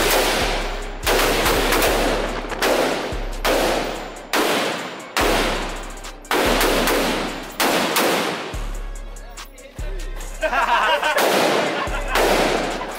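Guns fired one shot at a time, about eleven shots at uneven intervals of roughly a second, each cracking and trailing off in echo. Music with a deep bass plays underneath.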